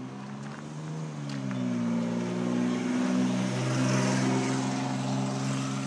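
A motor vehicle's engine running steadily close by, its low hum growing louder to a peak about four seconds in, then easing off. The pitch steps down slightly about a second in and again near the end.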